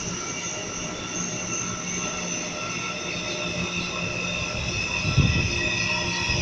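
CPTM Series 9500 electric commuter train moving slowly along the platform, with several steady high-pitched tones of wheel squeal and motor whine over a low rumble. There are a couple of low thumps about five seconds in.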